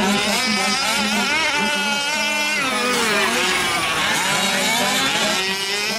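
Several 5th-scale RC trucks' small two-stroke gas engines racing at once, their overlapping whines rising and falling as throttles open and close, over a steady drone.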